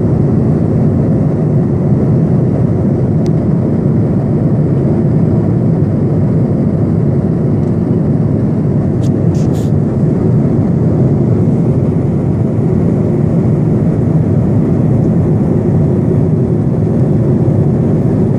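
Airplane cabin noise heard from inside the cabin in flight: the steady, low rush of the engines and the air streaming past the fuselage. A few faint clicks come through, about three seconds in and again about nine seconds in.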